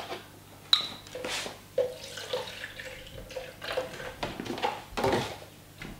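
Milk poured from a plastic jug into a saucepan, splashing in uneven pulses, with a sharp click about a second in.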